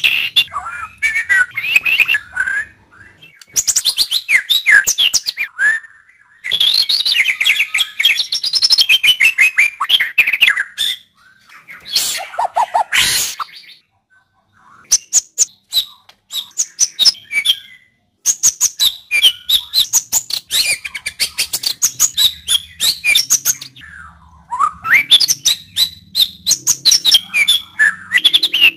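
White-rumped shama (murai batu) singing: loud phrases of quick, varied whistled notes alternating with fast rattling runs of sharp clicking notes, broken by short pauses, with one harsh call about twelve seconds in.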